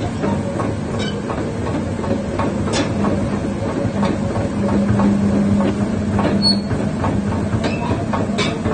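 Komatsu PC400-8 tracked excavator running: a steady diesel engine drone with repeated metallic clanks and knocks. The engine note strengthens for a second or two about halfway through.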